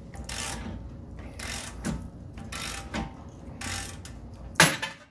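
Hand ratchet clicking in strokes about once a second as it tightens a ball joint separator on a tie rod end, then near the end one sharp, loud pop as the tie rod end's tapered stud breaks free of the steering knuckle on a 2001 Lexus LS430.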